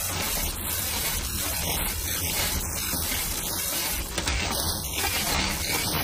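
Road bike drivetrain running as the crank is spun by hand: the chain runs over the chainrings and rear sprockets with a steady grinding noise from the crank area. The owner takes it to be caused, probably, by a stretched chain.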